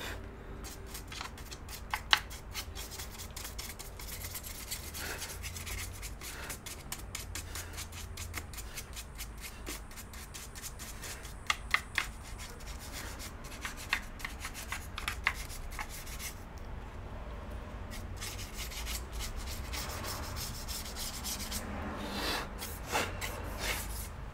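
Repeated rubbing and scraping strokes of cleaning dirt and residue off the opened iMac's housing, with a few sharp clicks in between.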